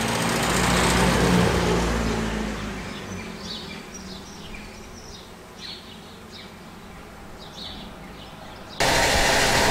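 1956 Standard 8 saloon's small four-cylinder engine driving past, loudest about a second in and fading away by about three seconds. Birds chirp in the quiet that follows, and near the end a steady engine idle cuts in abruptly.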